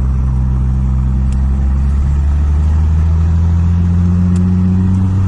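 Car engine running steadily at a low, even drone, its pitch shifting slightly partway through.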